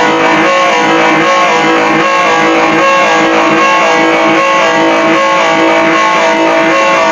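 Guitar music, played loud and steady, with many plucked notes.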